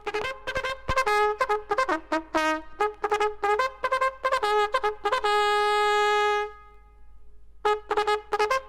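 Military bugle sounding a call: quick tongued notes leaping between a few pitches, then one long held note about five seconds in. After a short break the quick notes start again near the end.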